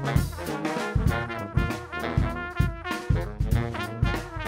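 Upbeat horn-led music, with brass such as trombone playing over a steady drum beat.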